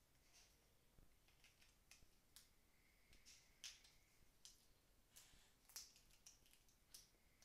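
Snow crab leg shells being cracked and peeled apart by hand: faint, irregular sharp cracks and clicks, the loudest about three and a half and about six seconds in.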